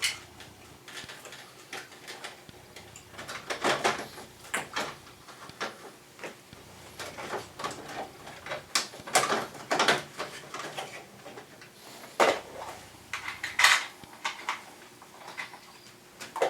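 Parts of a wall-mounted air conditioner being handled during disassembly or reassembly: an irregular run of clicks, knocks and light rattles, the sharpest a little past the middle.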